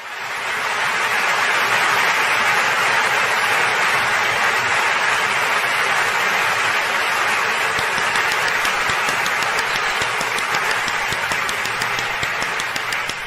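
A crowd applauding: dense, steady clapping that starts abruptly, then from about eight seconds in begins to thin so that single claps stand out, dying away near the end.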